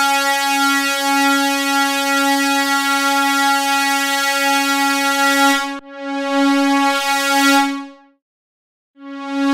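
A held note from an FM8 FM-synthesizer patch sounds as one steady, bright pitched tone. It breaks off for an instant just under six seconds in, plays again, stops about eight seconds in, and starts again shortly before the end. The Quality settings are being raised, Analog to add warmth and detune and Digital to add high end.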